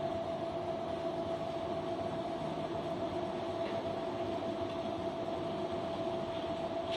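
Ring-die organic fertilizer granulator and its round polishing drums running steadily: a constant machine hum with a steady whine held at one pitch.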